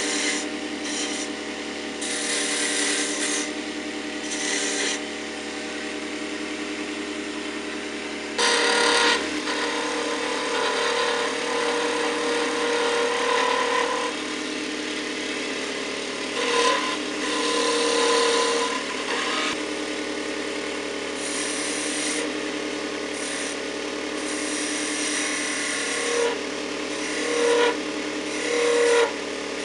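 Wood lathe running with a steady motor hum while a turning chisel cuts into the spinning plum-wood blank, in repeated scraping passes of a second or so each, the loudest about eight seconds in.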